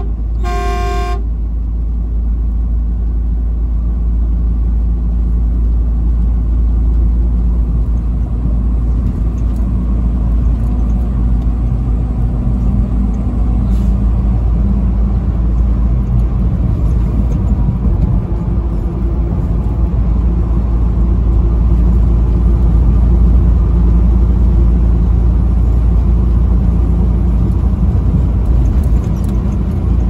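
A truck horn blasts at the very start and cuts off about a second in. After that there is the steady low drone of a semi truck's engine and tyres on the highway, heard from inside the cab.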